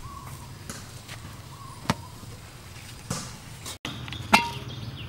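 Aluminium steamer pot and lid knocking together: a few sharp metal clinks, the loudest about four seconds in with a short ring.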